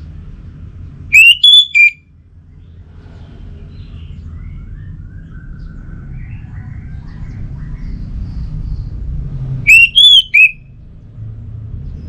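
Orange-headed thrush song: two loud three-note whistled phrases about eight seconds apart, each note sliding up, with soft warbling notes between them over a low background rumble.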